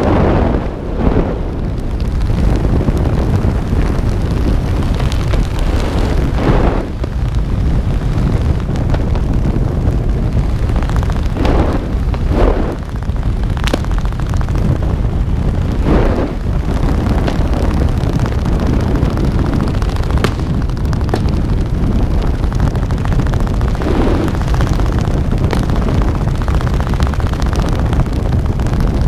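Wind buffeting the camera's microphone in a steady, loud low rumble, from the airflow of a parachutist descending under canopy.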